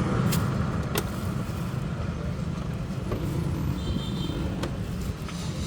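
Steady low rumble of a motor vehicle on the road, with a few sharp clicks.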